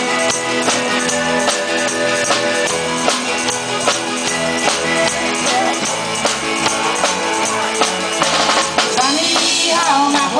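Live country-rock band playing an instrumental passage: drum kit keeping a steady beat under electric guitar and bass chords. A woman's singing voice comes in near the end.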